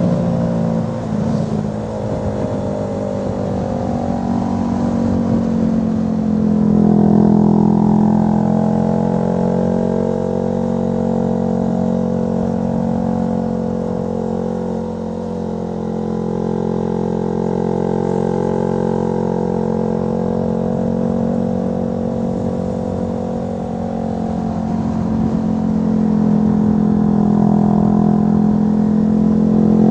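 Honda CB125R's single-cylinder four-stroke engine breathing through a Leovince LV ONE Evo aftermarket muffler, heard from on the bike as it is ridden. The engine note climbs under throttle about six seconds in and again near the end, and eases off in between, as the rider works through the bends.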